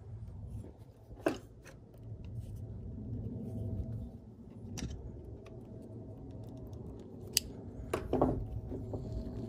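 Handling noise of a fuel pump and its plastic inlet filter being pressed and worked together: scattered rubbing and a handful of sharp clicks, over a low background rumble.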